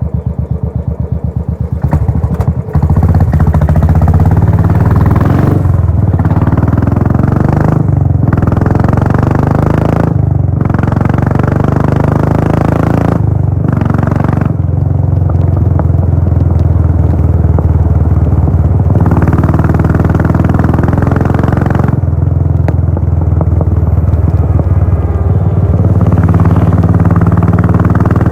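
Royal Enfield Bullet 500's single-cylinder engine through a Gold Star full-system exhaust, its separate exhaust beats audible at low revs for the first two seconds or so. It then gets much louder and runs hard under way, with a few brief dips in the sound.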